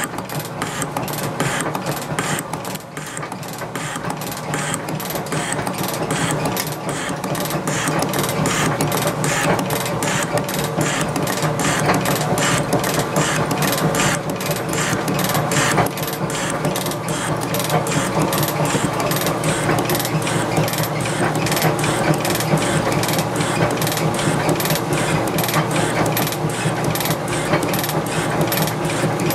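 Sheldon 12-inch metal shaper running and cutting gummy steel, its ram stroking back and forth in an even rhythm with a click on every stroke over a steady motor hum.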